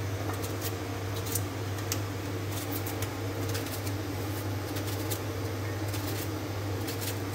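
Kitchen knife slicing through red onion held in the hand, a crisp snick at each cut, coming irregularly over a steady low hum.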